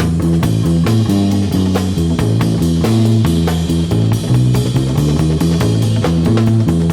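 Rock music with electric guitar, bass guitar and a drum kit keeping a steady beat.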